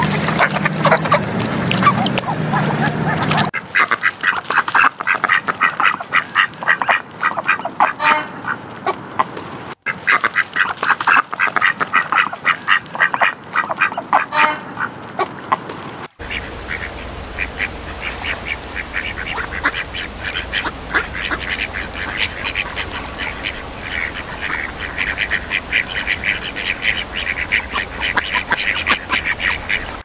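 A flock of ducks quacking in a dense run of short, rapid calls. The recording changes abruptly a few times.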